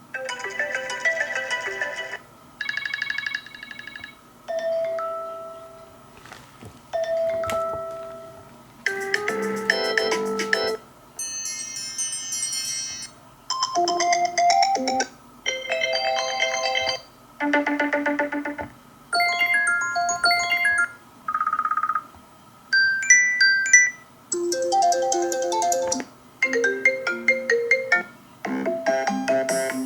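Apple iPhone 13 Pro Max built-in ringtones previewed one after another, about fifteen short melodic snippets of a second or two each, separated by brief gaps. Two of the snippets are single chimes that fade away.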